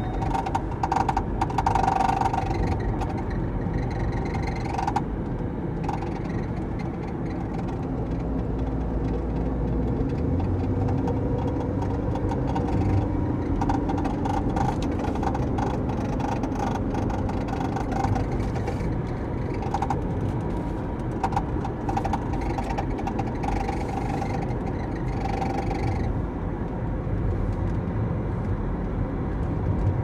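Inside a 2013 Ford Mustang's cabin while driving: steady road and engine noise, with a dashboard rattle of short clicks and buzzing that comes and goes in spells. Its cause is unknown to the owner.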